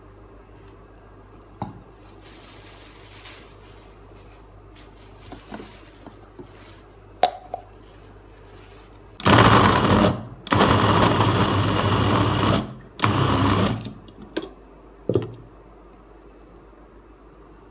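Moulinex electric mini chopper's motor running in three pulses, about a second, two seconds and a second long, mincing raw meat. Short plastic clicks and knocks from the chopper bowl being handled come before and after.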